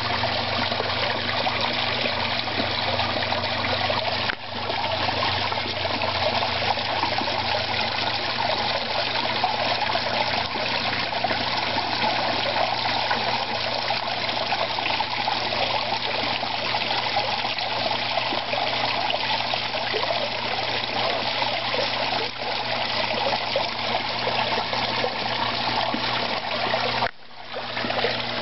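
Water trickling steadily into a garden koi pond, with a low steady hum underneath. The sound dips briefly about four seconds in and again near the end.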